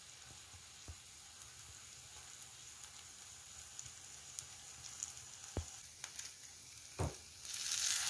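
Syrniki (farmer's-cheese pancakes) sizzling and crackling in vegetable oil in a frying pan. There are two soft knocks about five and a half and seven seconds in. Near the end the sizzle swells loudly as one is turned with a fork and a slotted spatula.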